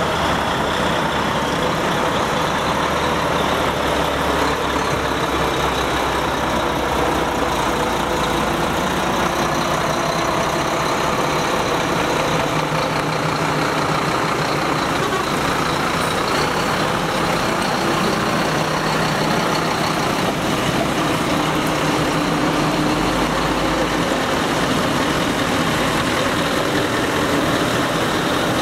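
Diesel engines of heavy trucks running as the trucks drive slowly past one after another, a steady low rumble.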